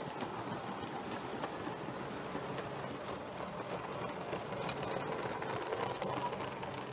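7mm-scale model train of coaches running along the track: a steady rolling rumble with light clicking from the wheels over the rail joints, getting a little louder as the coaches pass close by.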